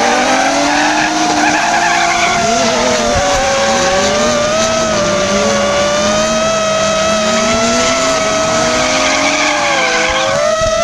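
FPV racing drone's motors and propellers whining close to the microphone, the pitch wavering up and down with the throttle, over drift cars' engines revving in repeated rising sweeps and tyres squealing. The sound cuts off suddenly at the very end.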